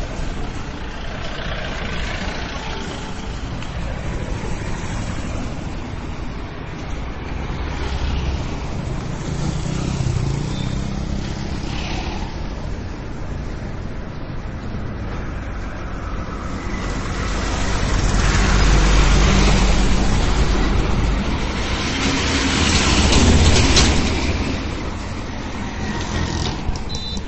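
Road traffic: vehicles passing with engine and tyre noise over a steady background, swelling loudest about eighteen to twenty seconds in and again around twenty-three seconds.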